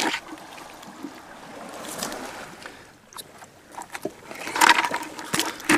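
Water sloshing and splashing, with a few short knocks and a louder splash or scrape about four and a half seconds in.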